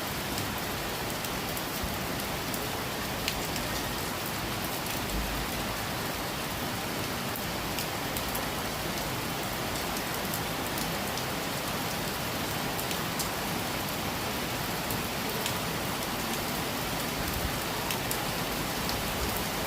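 Steady rain falling, an even hiss with scattered individual drops tapping on a surface.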